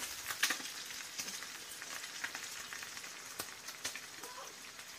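Fried eggs, tomato slices and chapli kebabs sizzling in oil on a flat black griddle (tawa), a steady hiss broken by scattered sharp clicks as a spatula works the food.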